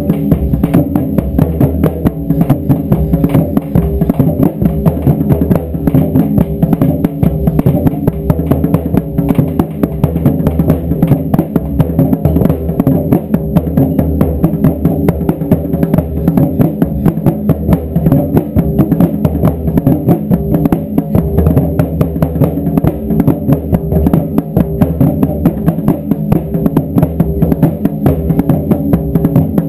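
A group of taiko drums pounding out a fast, unbroken beat.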